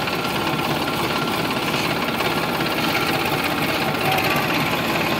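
Sonalika DI 745 tractor's three-cylinder diesel engine running steadily while the tractor drives, with a fast, even firing beat, heard from the driver's seat close to the exhaust stack.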